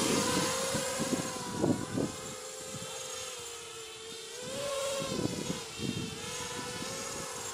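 Lumenier QAV 250 quadcopter's brushless motors and propellers whining steadily in flight, the pitch wavering slightly as the throttle changes. Low gusts of wind buffet the microphone a few times.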